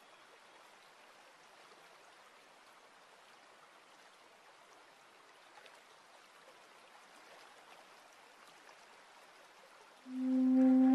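Faint, steady trickle of water spilling over a low stone ledge into a shallow pebble-bottomed garden pool. About ten seconds in, music starts with a loud held note.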